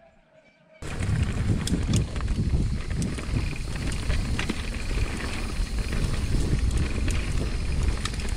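Mountain bike riding a trail: wind buffeting the action-camera microphone over the tyres' rolling noise, with scattered sharp clicks and rattles. It starts suddenly about a second in.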